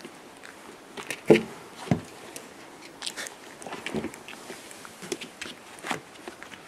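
Whippet puppy chewing and mouthing close to the microphone: irregular small clicks and knocks, with a louder knock a little over a second in.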